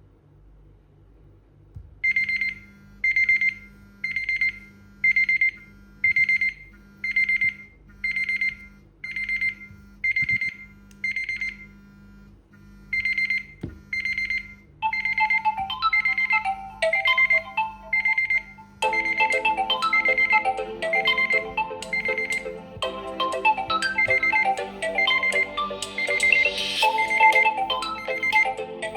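Electronic alarm beeping at a high pitch about once a second, starting about two seconds in, with one short pause partway through. Phone ringtone melodies join over it: one from about halfway, then more from about two-thirds through, until several ringtones and the alarm sound at once.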